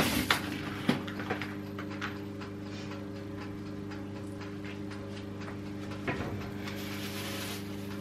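A cardboard box being handled and opened by hand: a few short sharp crackles and clicks in the first couple of seconds and again about six seconds in, over a steady electrical hum.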